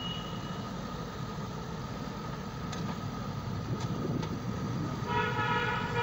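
Diesel engine of a JCB backhoe loader running steadily as it works its front bucket through wet mud, with a few faint knocks in the middle. About five seconds in, a steady, horn-like pitched tone joins and holds.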